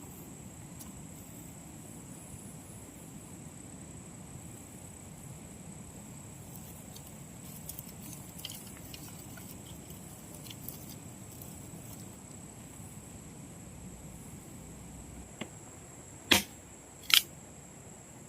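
A steady high-pitched insect drone with a few faint ticks, then two loud sharp knocks about a second apart near the end.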